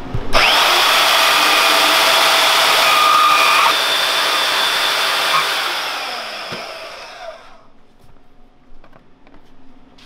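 Bauer band saw switched on and cutting a plastic motorcycle rear fender, a loud steady whir for about five seconds, then the saw winds down over a couple of seconds. A few faint knocks of handling follow.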